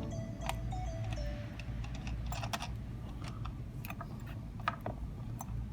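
Scattered light clicks and ticks of small metal lock parts being handled as a nut is screwed onto the back of a vending-machine door lock, with faint background music during the first second or so.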